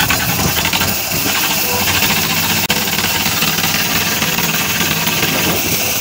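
Concrete mixer machine's engine running steadily under load.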